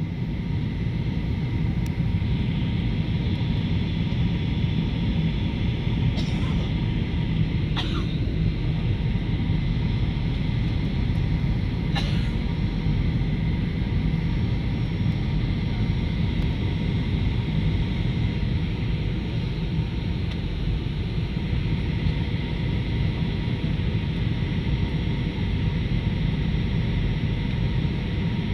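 Steady roar of an airliner's engines and airflow as heard inside the passenger cabin on the approach to landing, with a few faint ticks about 6, 8 and 12 seconds in.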